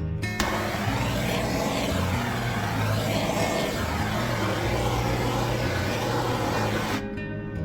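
Handheld electric blower running with a loud, steady rush of air, switching on abruptly about half a second in and cutting off shortly before the end, used to push white resin into ocean-wave lacing; guitar music plays faintly underneath.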